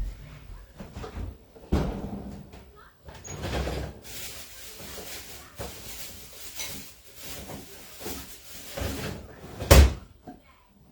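Kitchen handling sounds: a series of knocks and clatters, with one loud bang near the end, like a cupboard door or a pot being set down hard.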